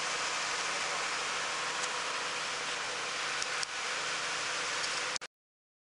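A steady, even hiss of background noise with a faint tick or two, cutting off abruptly about five seconds in.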